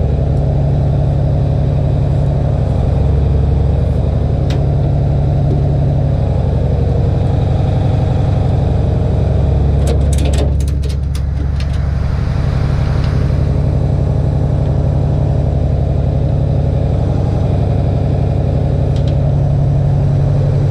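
Tow truck engine running steadily with a deep drone. A quick cluster of clicks and knocks comes about ten seconds in.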